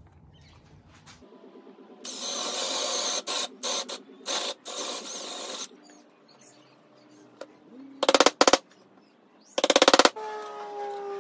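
Wood chisel cutting out a mortise in a pine stool leg: a few seconds of dense scraping and chopping, then two short, very loud rattling bursts near the end. A pitched sound, falling slightly, begins just after the last burst.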